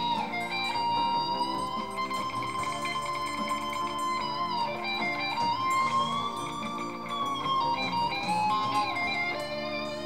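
Gold-top Les Paul-style electric guitar playing a slow lead melody of long sustained notes, bent up and down with slow vibrato.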